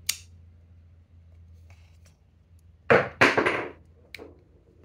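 Small plastic Lego pieces handled and snapped together by hand: a sharp click at the start, a louder spell of clicking and rubbing about three seconds in, then another click.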